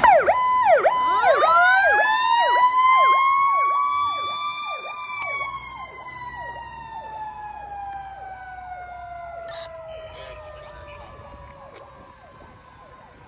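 Fire rescue truck's sirens passing and moving away: an electronic siren in a rapid yelp, sweeping up and down several times a second, over a mechanical siren that winds up for a few seconds and then slowly winds down. The whole sound fades from about five seconds in.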